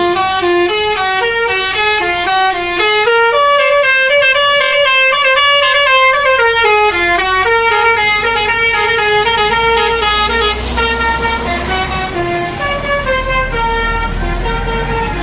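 A bus's basuri telolet horn playing a quick melody of stepped notes. The melody grows softer about ten seconds in, as a low engine rumble comes up.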